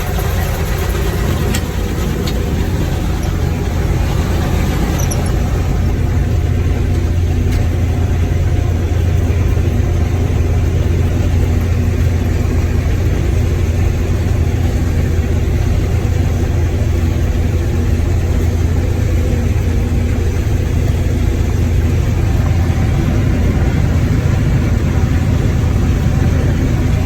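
Combine harvester running at full throttle with its separator and feeder engaged, a loud, steady machine noise with a strong low hum.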